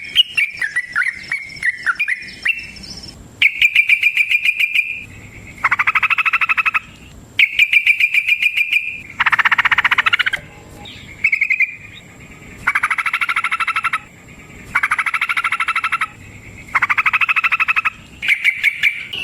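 Yellow-vented bulbul (trucukan) singing in bursts of very fast chattering trills, each about a second long and repeated every second or two, after a few looser chirping notes at the start. A faint steady high whine lies underneath.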